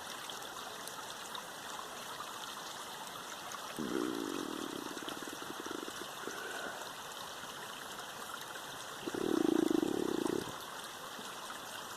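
Steady rushing noise like running water, with two louder low sounds of a second or two each, about four and about nine seconds in.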